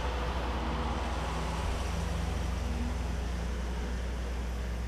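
An ambulance's engine running steadily as the vehicle moves off, a low steady rumble under a haze of road and outdoor noise.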